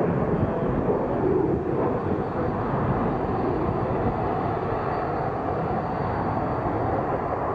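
Steady rushing jet noise from a formation of BAE Hawk T1 jet trainers flying over in a display.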